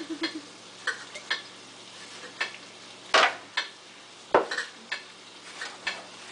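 A plastic spatula stirring and knocking in a nonstick frying pan of curry shrimp, peppers and onions over a faint sizzle: a scattering of clicks, with two loud knocks about three and four and a half seconds in.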